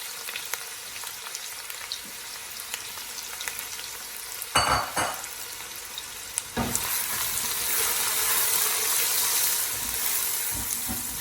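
Garlic and ginger paste frying in hot oil in a pan, a steady sizzle, with a metallic clatter about four and a half seconds in. About six and a half seconds in the sizzle jumps up louder as the fried onions go into the pan.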